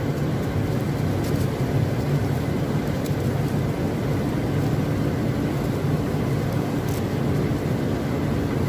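Garlic sorting machine running steadily with a low mechanical drone, with a few faint clicks.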